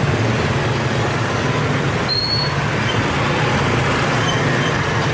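Steady street traffic noise with a constant low engine hum, and a brief high squeak about two seconds in.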